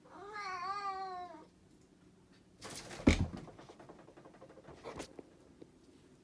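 A cat meows once, a single wavering call about a second and a half long. About three seconds in comes a short, louder rustle with a thump, followed by fainter rustles.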